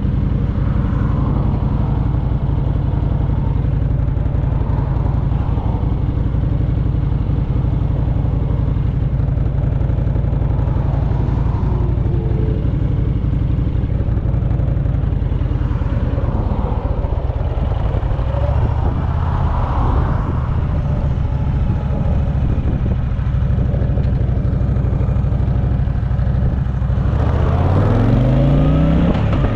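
Motorcycle engine running steadily at low speed through a turn, then rising in pitch near the end as the bike accelerates away. Heard from a helmet-mounted camera.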